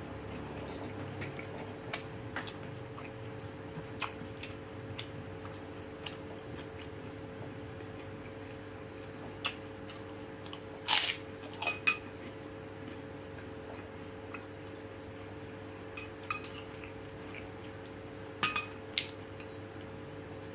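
Sounds of a meal eaten by hand: a few sharp clinks of a metal spoon against a ceramic bowl and plate, loudest about 11 seconds in and again around 18 to 19 seconds, with scattered small clicks between. A steady low hum runs underneath.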